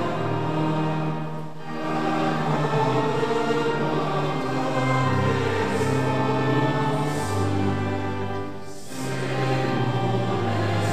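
A congregation singing a hymn together in a reverberant church, in long held notes with brief breaks between phrases about two seconds in and again near nine seconds.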